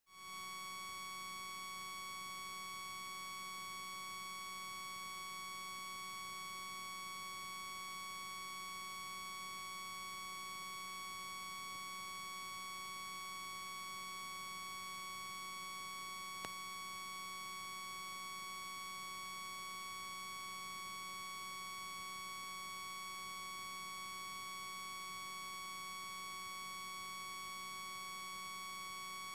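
Steady electronic whine made of several constant pitches, unchanging throughout, with a single brief click about sixteen seconds in.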